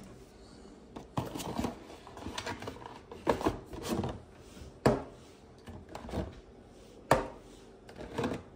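Hard plastic and cardboard parts of the boxed camera kit being handled: several sharp knocks and clacks a second or two apart, with rubbing and scraping between them.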